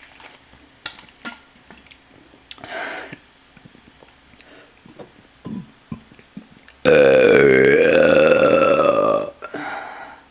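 A person burping: a short burp about two and a half seconds in, then one long, loud, drawn-out burp lasting about two and a half seconds that starts about seven seconds in, its pitch dipping and then rising again.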